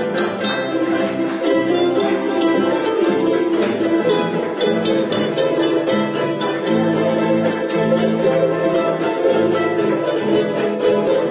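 Several charangos strummed together in a group, with a steady, fast strumming rhythm.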